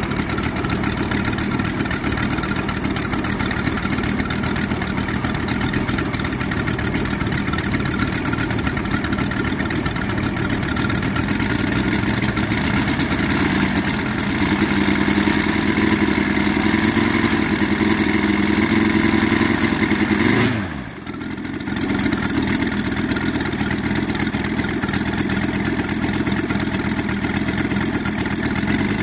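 Moki 250 five-cylinder radial model aircraft engine running on a test stand with its propeller, fed without a fuel pump. The revs rise slightly partway through. About twenty seconds in they drop sharply for a moment, then the engine picks up again and runs on.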